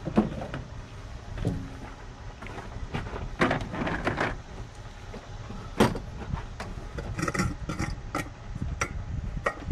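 Scattered clicks, taps and clinks of metal engine parts being handled and worked under a truck's open hood: irregular, with a cluster in the middle and a quicker run of them over the last few seconds.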